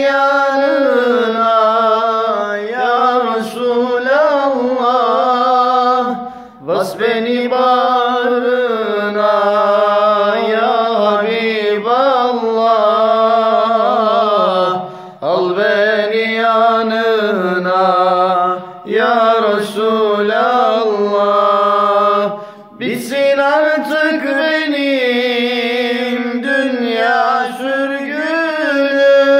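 Unaccompanied male singing of an ilahi, a Turkish Islamic hymn: long held phrases bent through ornamented turns, with short breaks for breath about 6, 15, 19 and 22 seconds in.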